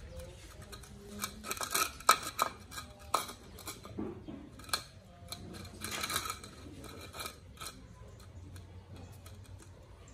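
Puppies eating from food bowls: quick clicks and clinks of the bowls mixed with chewing and smacking, busiest in the first half and thinning out toward the end.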